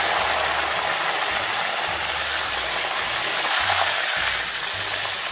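Raw banana slices deep-frying in hot oil: a loud, dense sizzle and crackle, kicked up by salted turmeric water being added to the oil. It eases slightly near the end.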